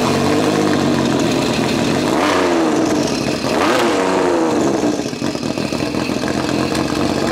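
Turbocharged Sea-Doo Spark jet-kart engine running and being revved: its pitch climbs and falls twice, about two seconds in and again near four seconds, then it runs more evenly.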